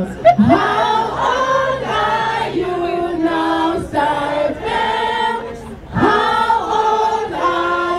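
A choir of voices singing together in harmony, with little accompaniment.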